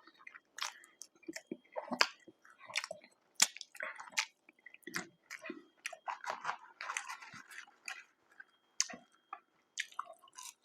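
Close-miked chewing and wet mouth sounds of someone eating fast food, with irregular small clicks and crunches.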